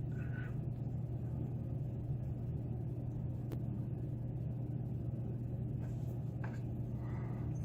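Steady low background hum, with a few faint small clicks of lock parts and tools being handled.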